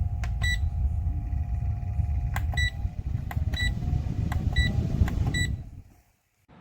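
Rechargeable camping fan running, its air blowing on the microphone as a loud low rumble, with five clicks, each followed by a short high beep from its controls, as settings are stepped; the rumble stops about five and a half seconds in.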